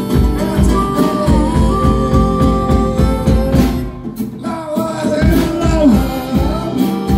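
Live band music: acoustic guitar and a drum kit keeping a steady beat, with long held melody notes over them, probably from harmonica and voice. The sound thins briefly about four seconds in before the band carries on.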